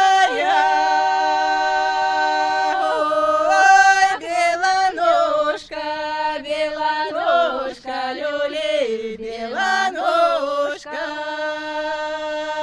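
Voices singing a Russian folk song unaccompanied, in long held notes that step up and down in pitch.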